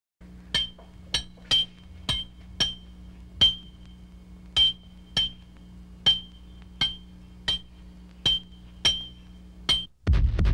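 About fourteen sharp metallic clinks, each with a brief ringing note, at uneven intervals of about half a second, over a steady low hum. A loud rumble breaks in near the end.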